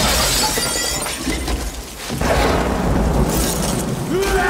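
Glass shattering with a loud crash as a window is smashed in a fight, followed by a second crash about two seconds in.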